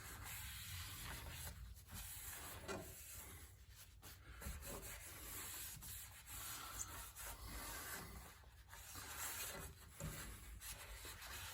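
Faint rubbing strokes roughly a second apart, a hand wiping down a freshly wet-sanded primed part.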